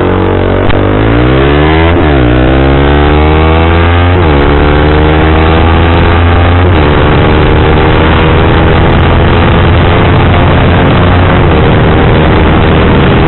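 Honda CBR150R's single-cylinder engine through a CLD C7 aftermarket silencer, accelerating hard through the gears: the pitch climbs and drops at each upshift, three times in quick succession, then rises more slowly in a higher gear with one more shift near the end.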